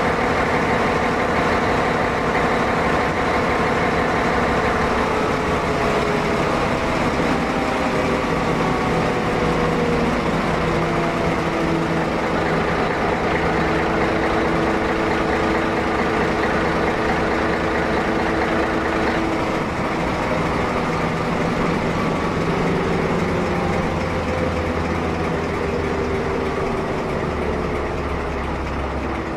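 SNCF BB 67400 diesel locomotive's V16 engine running steadily, heard close up in the engine room, its pitch slowly sinking in places as the engine speed eases.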